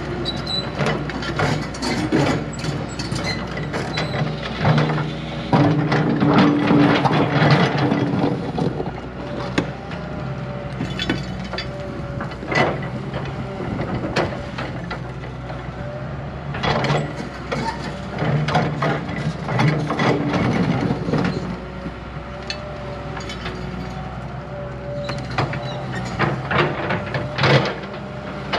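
Diesel engine of heavy earthmoving machinery running, working harder in two stretches of a few seconds each, with frequent metallic clanks and knocks from the working machine.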